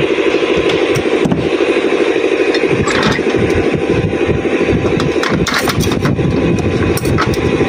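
Metal clicks and scrapes as the wire whisk is unhooked from a KitchenAid stand mixer and the stainless steel bowl is lifted off, mostly in the second half. Under them runs a steady mechanical hum like an idling engine.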